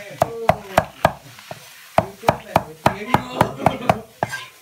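A knife chopping a pile of fresh mắc mật leaves on a wooden chopping board: quick, even strokes, about three to four a second, with a pause of about a second after the first few.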